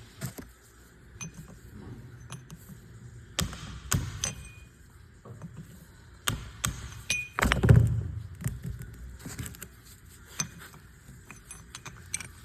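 Irregular metal clinks and taps of hand tools against a steel bearing race that has been cut and cracked in two, as it is worked off the differential carrier. The loudest knock comes a little past halfway.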